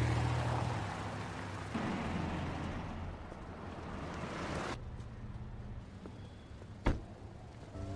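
A car's engine and tyres as it pulls away and drives off, the noise fading over the first five seconds, then quiet street ambience. A single sharp click or knock about seven seconds in.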